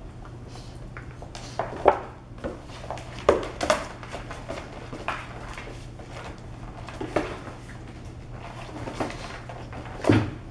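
Claws and paws of a wolf pup and a Border Collie pup clicking and scuffing on a hard, smooth floor as they scuffle, in irregular bursts with louder knocks about two, three and a half and ten seconds in.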